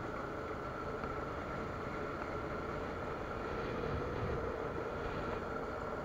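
ATV engine running steadily under way, heard from on board together with tyre and wind noise.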